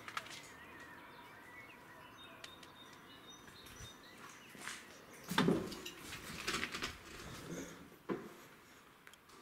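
Footsteps crunching and knocking over rubble and debris on a hard floor, loudest from about five to eight seconds in, with faint bird chirps in the background.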